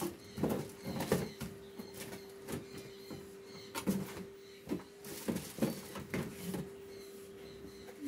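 Plastic wrapping and cardboard packing boards being handled: scattered rustles, crinkles and light knocks, over a steady hum.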